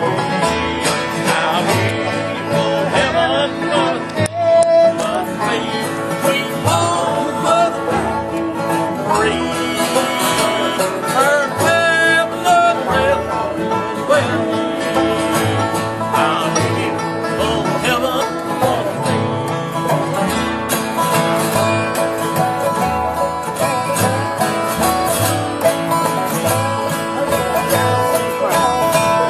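An acoustic bluegrass band playing a gospel tune: banjo rolls over strummed acoustic guitars, upright bass and resonator guitar (dobro), at a steady full level.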